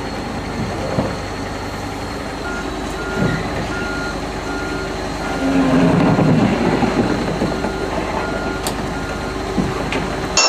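Komatsu PC300 excavator's diesel engine running as it travels forward on its tracks, its travel alarm sounding a steady run of short beeps from a few seconds in. The engine grows louder for a couple of seconds in the middle.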